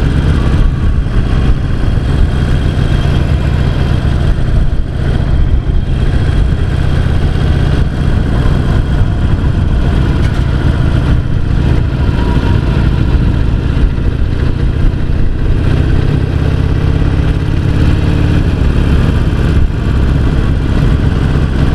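Harley-Davidson XL883C Sportster's air-cooled 883 cc V-twin running on its standard exhaust pipes while the bike cruises, a steady low engine note with road noise.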